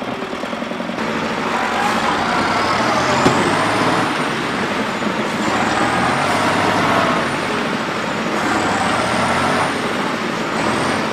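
Diesel engines of a crawler tractor and a wheeled tractor running hard under load as the crawler tows the mired tractor out of the mud. High whines rise and fall several times over the engine noise, and there is a single sharp knock about three seconds in.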